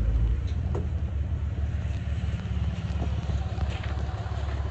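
Pickup truck engine running with a steady low rumble as a Ram pickup moves slowly along a snow-covered driveway.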